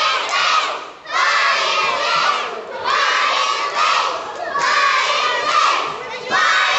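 A large group of children shouting together in loud waves that repeat about every second and a half to two seconds.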